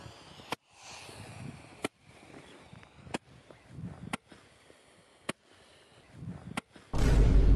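Six sharp clicks or knocks, spaced a little over a second apart, over faint background noise, then a sudden loud, deep burst of noise near the end.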